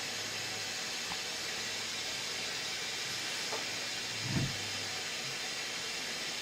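Steady background hiss with a faint low hum that stops about five seconds in, and a soft thump shortly before it stops.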